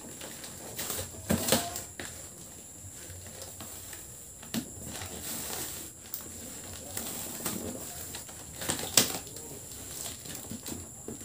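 Cardboard shipping box being opened by hand: packing tape peeled and torn off and the cardboard flaps and paper packing handled, with rustling and a few sharp rips, the loudest about nine seconds in.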